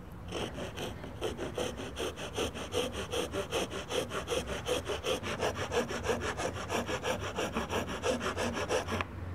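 A wood rasp is worked back and forth over a wooden tenon in quick, even strokes, about five a second, and stops abruptly near the end. The rasp is taking down a tenon that came out a little too thick for its mortise.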